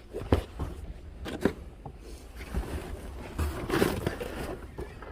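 Merchandise being handled and unpacked: a few sharp knocks, and plastic packaging crinkling and rustling, loudest near the end.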